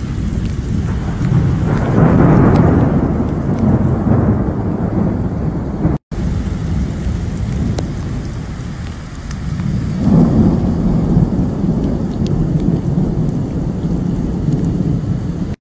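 Thunder rumbling over steady heavy rain, swelling about two seconds in and again about ten seconds in. The sound cuts out for a moment about six seconds in.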